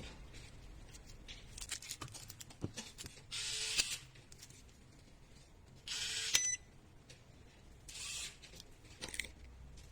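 Electronic cabinet lock being worked: scattered small clicks and three short mechanical whirring bursts of about half a second each, spread over several seconds.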